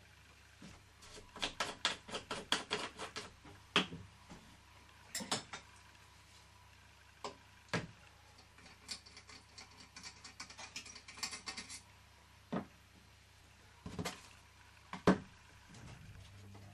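Small clicks and light knocks from handling brass model steam engines and plastic water-filling gear, including a quick run of clicks for about two seconds soon after the start and a sharper, louder click near the end.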